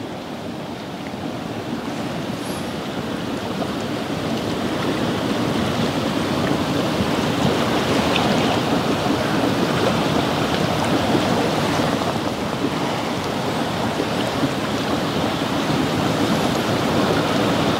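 Steady rushing of wind and lake waves. It builds over the first few seconds, then holds.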